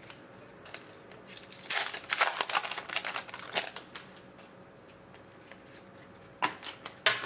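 Hockey trading cards and a pack wrapper being handled: a stretch of rustling and light clicks, then quieter, with two sharp clicks near the end.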